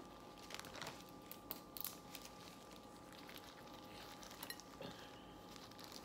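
Faint scattered clicks and light clinks of hands and utensils picking at crab shells during a seafood boil, clustered in the first two seconds and again about four and a half seconds in, over a faint steady hum.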